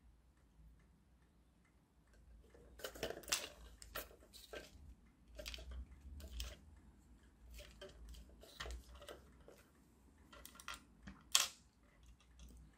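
Faint scattered clicks and taps of hands handling a 3D-printed plastic car chassis with a wooden mousetrap taped on it, as the trap is pressed down onto double-sided tape. One sharper click comes near the end.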